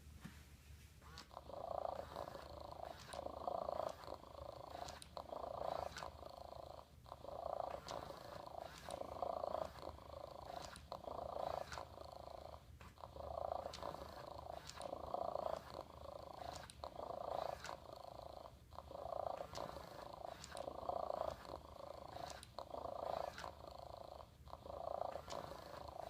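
Hasbro Joy For All robotic cat playing its electronic purr in one of its long purring loops, a steady rise and fall about once a second, with faint clicks alongside.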